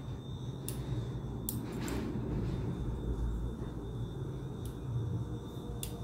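Sparse sharp metallic clicks, about five in six seconds, from a pick tool working the pins of a brass Yale 6-pin pin-tumbler cylinder, over a steady low background rumble.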